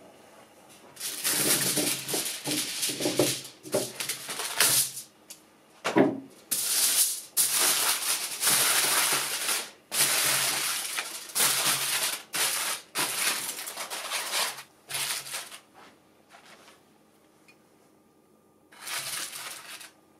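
Aluminium foil being crumpled by hand: loud crinkling in a run of bursts with short gaps, stopping about three-quarters of the way through, then one more burst near the end.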